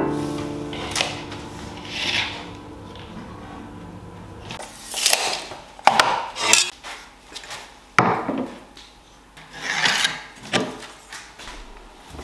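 A series of short rubbing, scraping strokes of a hand and tools across oak boards on a workbench, each about a second long. Background music fades out about four seconds in.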